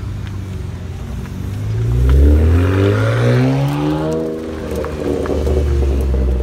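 BMW 3 Series coupe accelerating away, its engine note climbing steeply about two seconds in, dropping at a gear change, then climbing again. Another car's engine rumbles low near the end.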